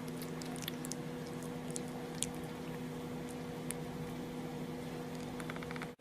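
A steady low hum, with scattered faint clicks and a quick run of small ticks near the end.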